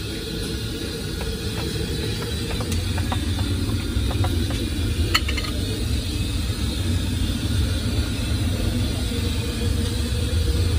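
Steady low rumble with an even hiss over it, street background noise around an open-air food stall, with a few light clicks and one sharp tick about five seconds in.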